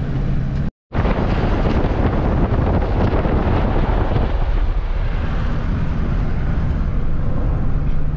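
Vehicle driving along beach sand: a steady rumble of engine and tyre noise with wind buffeting the microphone, broken by a brief silent cut just under a second in.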